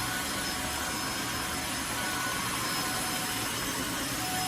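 Tineco Floor ONE S3 cordless wet-dry floor cleaner running steadily with its suction on, a steady motor noise with a thin constant whine.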